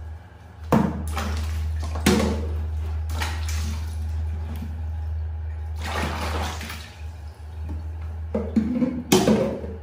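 Water splashing and sloshing in a plastic tub as a baby monkey is bathed, in several separate bursts over a steady low hum.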